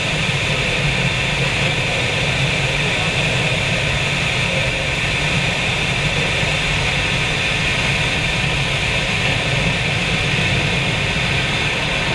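Steady rush of airflow over and into a sailplane's cockpit in gliding flight, with no engine, loud with the canopy's small side window open.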